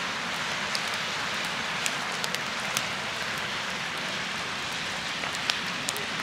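Split firewood burning in a small folding fire pit: the fire crackles and hisses steadily, with scattered sharp pops from the logs.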